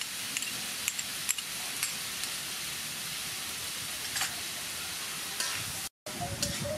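Squid and green peppercorns frying in a metal wok with a steady sizzle as hoisin sauce is added, with scattered light metal clicks. The sound breaks off for a moment near the end, then the sizzle and stirring continue.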